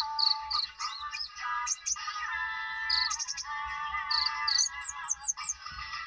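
Caged kolibri ninja (sunbird) singing: a continuous, fast, varied warble of whistled notes broken by quick high chirps and trills.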